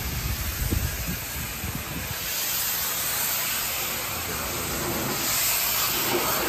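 Pressure washer spray hissing steadily against wood, growing louder about two seconds in and again near the end, as black mould is rinsed off.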